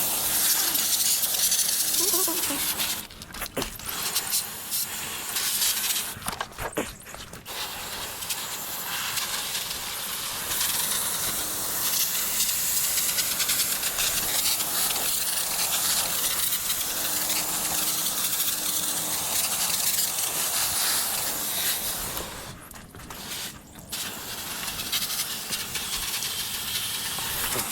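Water spraying hard onto an air-conditioner condenser coil, rinsing off the coil cleaner. It is a steady hiss that stops briefly three times.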